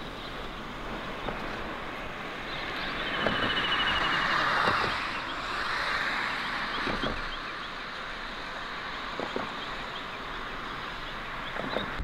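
Steady rushing of river water, swelling for a few seconds about three seconds in, with a few faint knocks. A short, fast, high trill sounds about three seconds in.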